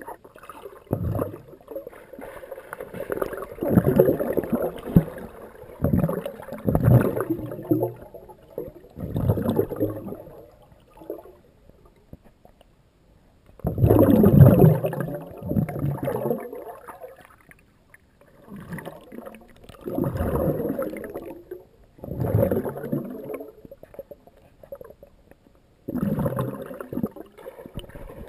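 Underwater bubbling and gurgling from a swimmer breathing out close to a GoPro in its waterproof housing, heard underwater. It comes in irregular bursts a second or two long with short pauses between them, the loudest about halfway through.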